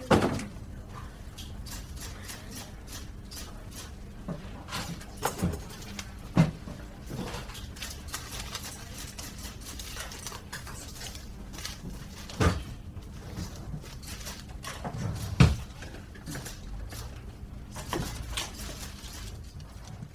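Irregular knocks and clatters, a few of them heavier thumps, over a steady low hum.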